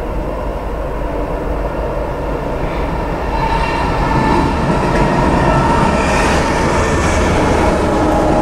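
Norfolk Southern train's diesel locomotives approaching, growing louder from about three seconds in as the lead unit reaches the trackside spot near the end.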